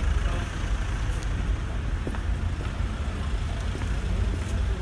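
Street traffic noise: a steady low rumble of vehicle engines, with a few faint clicks.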